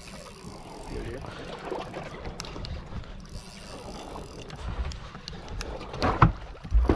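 Wind and water noise on a small fishing boat, with faint voices in the background, and two heavy knocks near the end, less than a second apart.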